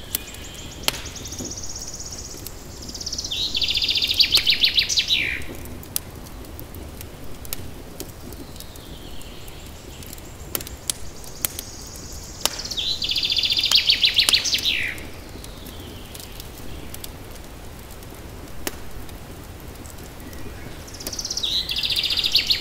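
A songbird singing the same short phrase three times, about nine seconds apart: a high, fast trill that falls in pitch and sweeps down at the end. Faint sharp clicks are scattered in between.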